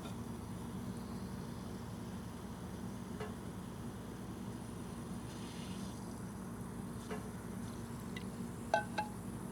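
Faint steady background hum with a few light clinks scattered through it, the two clearest close together near the end.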